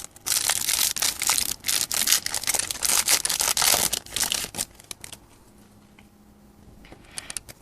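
Foil booster-pack wrapper being torn open and crinkled for about four seconds, then a few faint clicks of the cards being handled.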